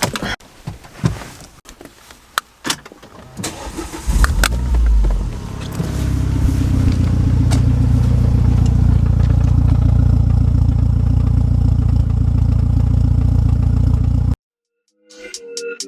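Renault Megane RS Trophy's turbocharged four-cylinder engine being started: a few clicks and knocks, then about four seconds in it catches with a brief rev and settles into a steady idle, which cuts off suddenly near the end.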